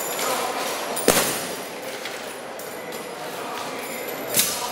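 Scrap metal pieces and nails clinking and jangling against one another as they are pressed onto a magnet-covered body, with two sharper knocks, about a second in and again near the end.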